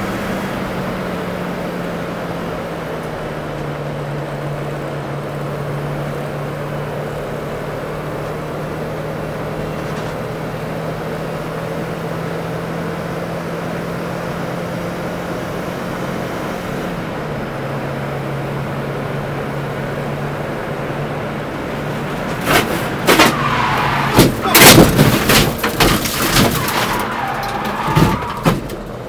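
Volkswagen Golf Syncro's engine running steadily at speed, heard inside the cabin, its note stepping down a little twice. About three-quarters of the way through, a rapid run of loud bangs and crunches as the car crashes.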